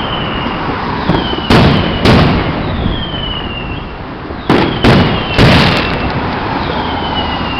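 Consumer fireworks going off in a street: five loud bangs, a pair about a second and a half in and three more about halfway through, with thin falling whistles between them over a constant background din.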